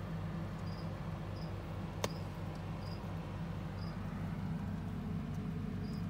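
Steady low hum with a faint, short high chirp every second or so, and a single sharp click about two seconds in.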